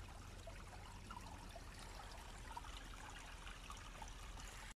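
Faint, steady trickle of a small forest brook running over stones and moss.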